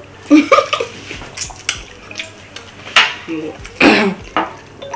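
Eating with bare hands from ceramic plates of fufu and ogbono soup: fingers scooping and knocking against the plates in scattered clicks, with wet biting and chewing sounds. A short vocal sound comes about half a second in.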